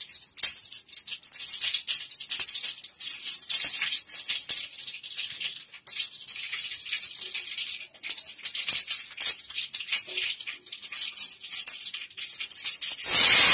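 Mustard seeds popping and crackling in hot oil in a kadai, the tempering stage of sambar, with fenugreek just added. The pops come thick and irregular over a steady sizzle, and a much louder sizzle starts near the end.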